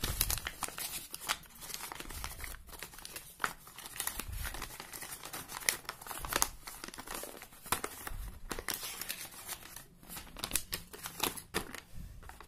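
A folded paper bill being pulled out of a cardboard box and unfolded by hand, rustling and crinkling in dense, irregular crackles.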